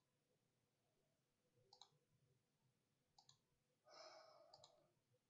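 Faint computer mouse clicks, each a quick press-and-release pair, heard three times about a second and a half apart. A soft breathy hiss lasts about a second just before the last pair.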